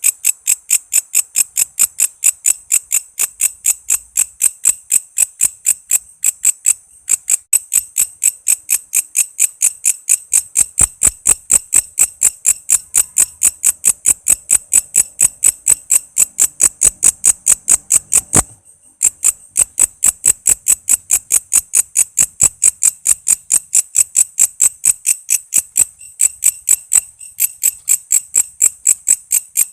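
Walang kece, a katydid used as a training call for songbirds, chirping in a fast, even series of high-pitched pulses, about four a second. The series breaks off briefly about a quarter of the way through and again about two thirds of the way through.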